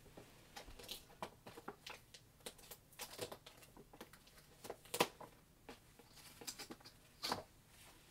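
Light handling noise: irregular soft rustles, taps and clicks, with a sharper click about five seconds in and another a couple of seconds later.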